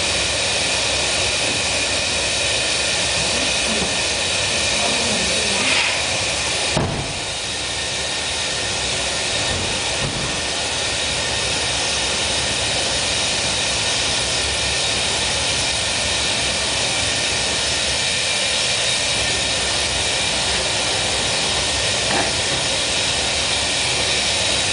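Steady roar of a gas-fired glassblowing furnace and glory hole, with a thin high whine running through it. A single knock about seven seconds in.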